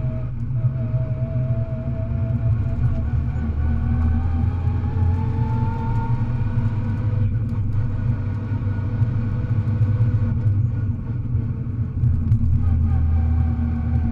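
Rally car engine heard from inside the cabin, running under load at a steady rumble. A whine rises in pitch for a couple of seconds about four seconds in, then drops away near seven seconds as the car eases off or changes gear, and the engine settles back to a steady run.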